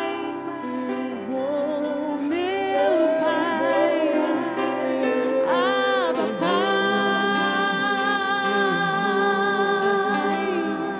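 Acoustic worship music: a singer's voice carrying a slow melody over acoustic guitar, holding one long note through most of the second half.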